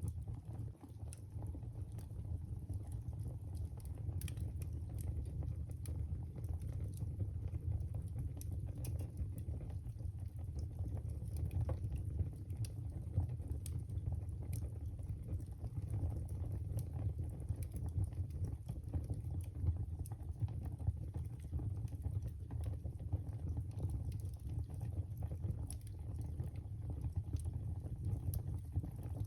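Wood fire burning in a fireplace: a steady low rumble of the flames with frequent sharp crackles and pops at irregular intervals.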